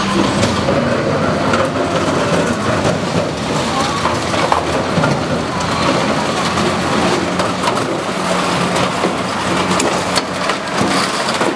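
Armoured police car's engine running as its front clearing blade pushes through a street barricade, with crunching, scraping and clattering of metal panels and debris.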